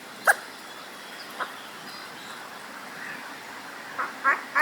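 Hooded crow fledgling giving short, abrupt hiccup-like calls: one sharp call just after the start, a faint one a second later, then three in quick succession near the end, about a third of a second apart.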